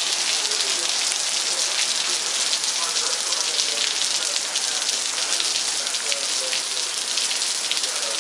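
Steady rain falling: a continuous hiss dense with small drop ticks.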